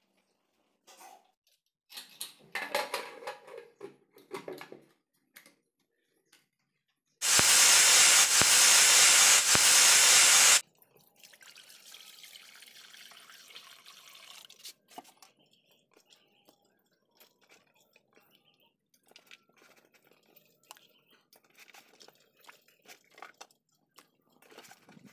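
Water poured into a black iron wok: a loud rush lasting about three seconds, then a softer swirl. Scattered clinks and splashes come from vegetables being handled in water before and after it.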